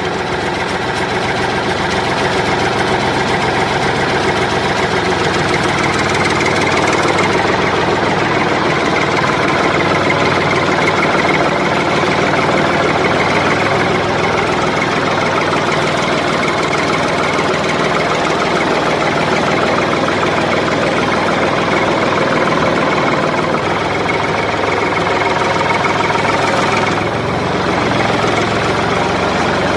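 Tractor engine running steadily at a constant pace, with a brief dip in level near the end.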